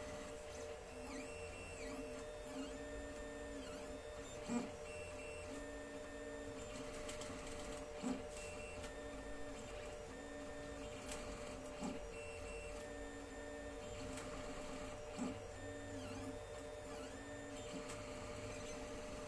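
Alfawise U10 3D printer running a print: its stepper motors whine in short tones that keep shifting pitch as the head moves, over a steady hum. Four sharp knocks stand out, about every three to four seconds.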